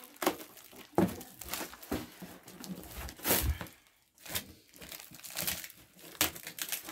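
Clear plastic wrapping film and packing tape on a cardboard box crinkling and tearing as hands pull at it, in irregular rustling bursts with a few sharper knocks of the box being handled.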